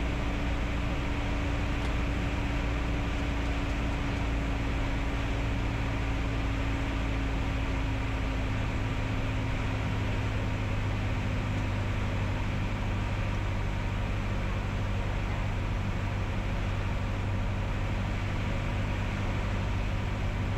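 Piper Cherokee's piston engine and propeller droning steadily, heard inside the cockpit on approach. A faint tone in the drone sinks slightly in pitch over the first ten seconds or so.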